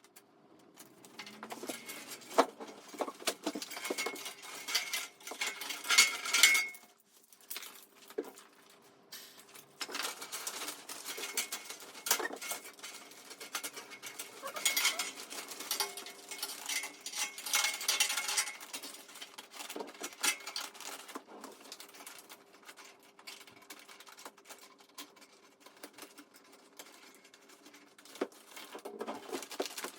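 Small clattering, tapping and rustling as metal and plastic parts of a dust extractor are handled and fitted during assembly, loudest in bursts around the first six seconds and again in the middle. A faint steady hum runs underneath.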